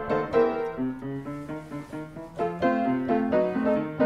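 Background piano music: a melody of separate struck notes over lower chords.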